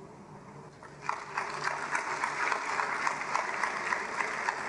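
A large congregation clapping its hands in applause, starting about a second in.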